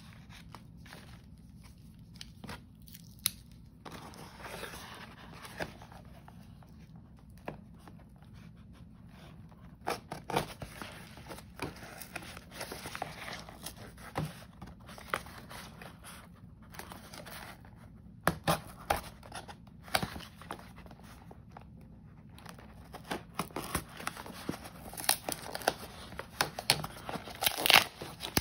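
Cardboard shipping box being handled and torn open by hand: scattered rustles, scrapes and knocks, then a busier run of ripping cardboard and crinkling near the end.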